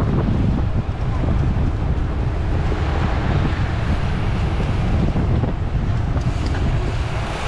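Steady wind rushing and buffeting over the microphone of an on-board camera on a bicycle ridden at race speed.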